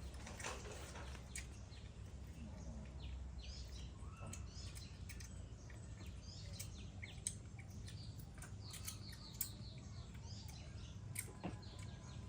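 Small birds chirping, with many short high chirps scattered throughout, over a low steady background hum and a few sharp faint clicks.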